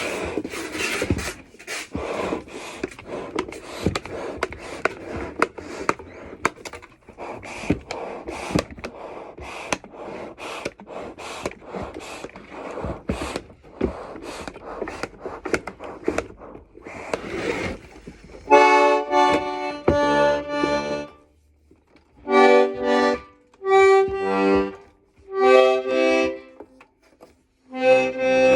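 'Belarus' garmon: for most of the stretch its bellows are worked with a breathy rush of air and many sharp clacks of buttons and valves. Then a series of short chords is played, each a second or two long, with silent gaps between.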